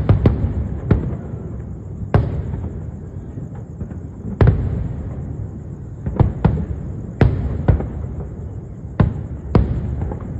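Aerial fireworks bursting overhead: about a dozen sharp bangs at irregular intervals, some in quick pairs, each trailing off in a rumbling echo.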